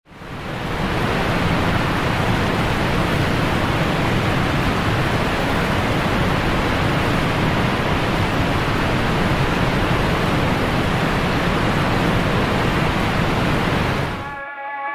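Steady rushing noise with no tone or rhythm in it, fading in over the first second and cutting off suddenly just before the end, where music begins.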